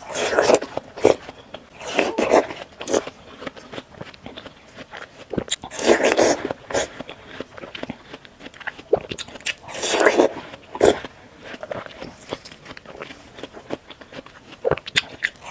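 Close-miked bites into sticks of juicy watermelon and wet, crunchy chewing, in loud clusters near the start, around two seconds, six seconds and ten seconds in, with softer smacking and crackles between.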